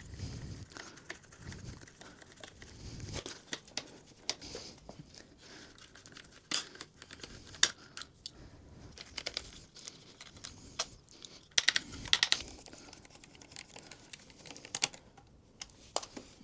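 Scattered clicks, taps and rustles of hand tools and plastic fairing panels being handled as screws are undone on a motorcycle's bodywork, with a quick run of clicks about twelve seconds in.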